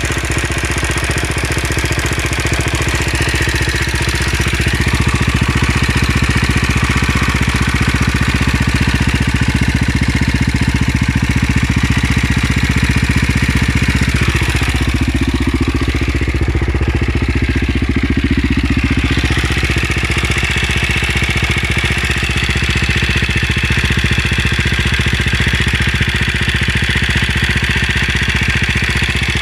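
KTM LC4 single-cylinder four-stroke engine idling steadily with a ticking from the top end: the sound of a worn inlet rocker arm roller bearing.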